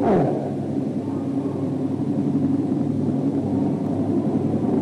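Steady low hum with several held tones underneath an old sermon recording, with a short falling sound at the very start.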